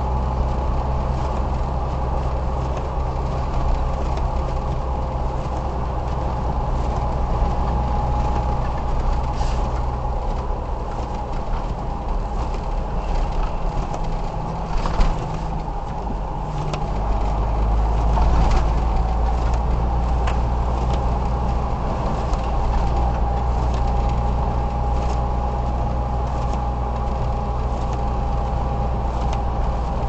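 Inside a car driving through deep snow: a steady low engine and road rumble with a faint steady whine, and scattered clicks and knocks, the sharpest about halfway through. The rumble swells briefly a little past the middle.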